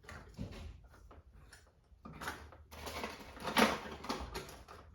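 Irregular rustling, scraping and clicking of small objects being handled, loudest about three and a half seconds in, over a faint steady low hum.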